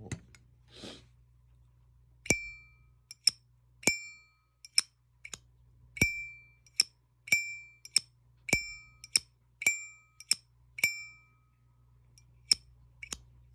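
Zippo lighter flicked open and snapped shut about seven times in a row. Each opening is a sharp metallic click that rings at one clear pitch for a moment; each closing is a shorter, dry click. This is one of the reference lighters whose opening sound has been tuned to a set pitch.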